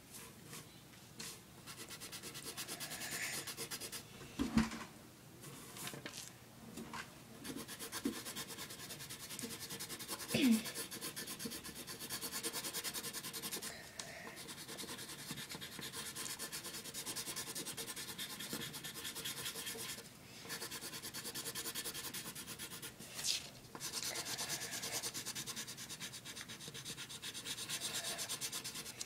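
Coloured pencil scratching rapidly back and forth on paper as an area is shaded in, with a few short pauses between strokes. There are two brief louder bumps, about four and ten seconds in.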